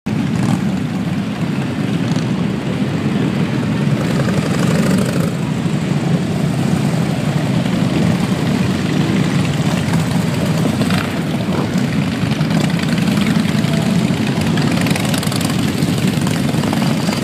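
A column of cruiser and touring motorcycles riding slowly past one after another, many engines running together in a steady, low drone.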